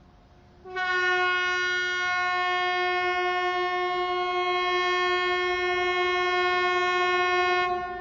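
Swedish air raid siren sounding one steady, unwavering tone rich in overtones: it starts abruptly about a second in, holds for about seven seconds, then drops to a much fainter lingering tone near the end.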